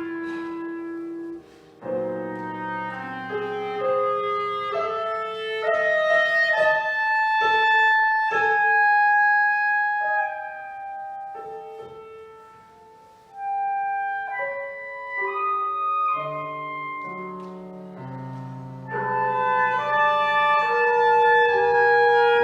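Clarinet and piano playing a contemporary chamber piece: long held clarinet notes over sparse piano chords, with a short lull about halfway through before the music picks up again.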